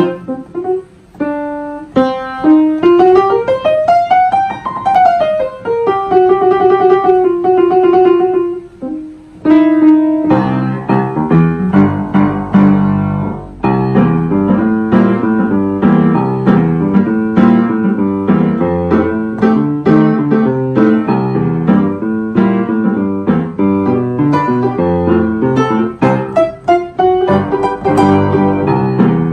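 Upright piano played by hand: a slow single-note melody with a run that climbs and falls back, then from about ten seconds in a fuller passage of chords under the melody.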